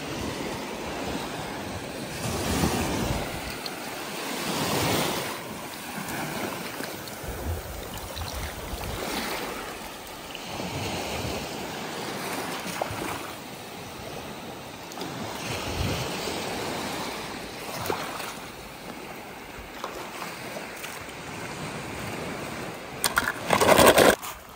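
Water washing in waves, swelling and falling back every few seconds, with some wind noise; a sudden loud noise near the end.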